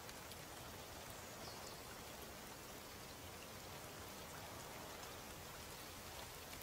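Faint, steady hiss of outdoor ambience with a few soft ticks.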